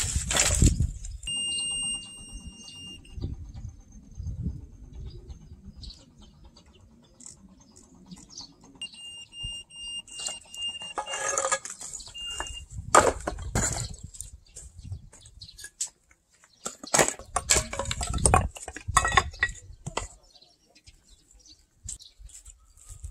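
Old timber and earthen wall debris being knocked loose and dropped during hand demolition: several bouts of clattering and crashing, with lighter knocking between. A steady high-pitched beep-like tone sounds twice, briefly near the start and for about three seconds in the middle.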